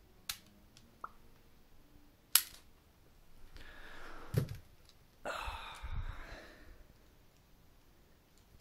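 A handful of sharp plastic clicks and snaps from a LEGO Technic rubber-band pistol's mechanism being worked, the loudest about two and a half seconds in, followed by a few seconds of rustling.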